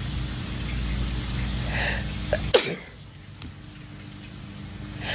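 A woman sneezes once, sharply and loudly, about two and a half seconds in, after a short drawn-in breath.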